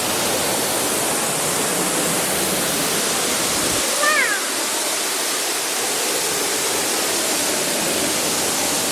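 Steady rush of a waterfall, even and loud, with a brief high falling call about four seconds in.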